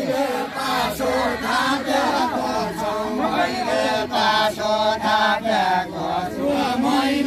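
A group of men singing a deuda, the Far-Western Nepali folk song sung while dancing with linked arms. Many male voices chant the tune together, with no instruments.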